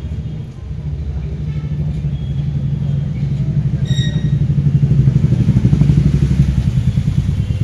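Loud, steady engine-like rumble with a fast pulse, growing louder over the first few seconds. A short high-pitched beep comes about four seconds in.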